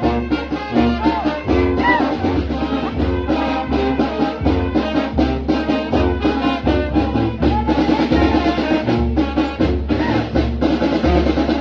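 Mexican brass band (banda) playing, with trumpets and trombones over a low bass line on a steady beat.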